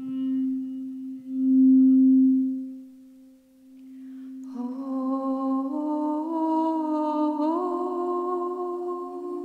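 A steady, held drone tone swells loud about two seconds in, then fades. About halfway, a woman's voice comes in, humming a slow wordless melody that steps upward over the drone.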